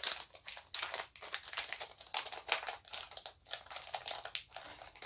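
Small plastic packaging wrapper being torn open and crinkled by hand: a run of irregular crackles.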